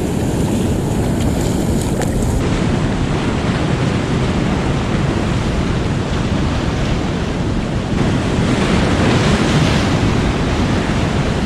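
Surf washing into a coastal gully, with wind buffeting the microphone; the wash swells a little louder about eight seconds in.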